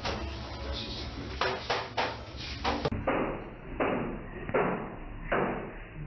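A series of irregular knocks and thumps: several sharp ones in the first half, then four heavier ones, each with a short ring-out, in the second half.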